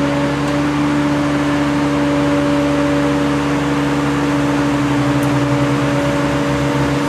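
Tree-felling crane's engine and hydraulics running steadily under load while the grapple saw holds a trunk section, a steady whine over the engine drone.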